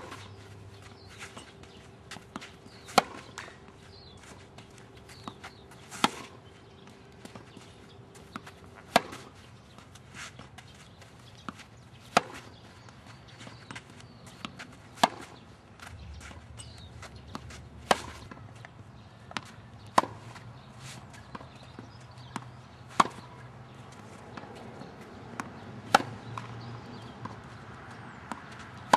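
Tennis ball struck by rackets about every three seconds in a steady rally, each crisp hit followed by a fainter thud of the ball bouncing on the court.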